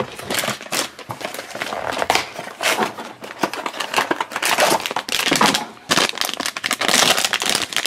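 A cardboard blind box being opened and the shiny foil blind bag inside crinkled and torn open by hand, a dense run of crackles.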